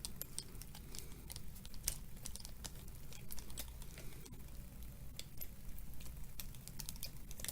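Faint, irregular light clicks and taps of small parts being handled as a scale RC beadlock wheel and tire are fitted together and its ring lined up for the screws.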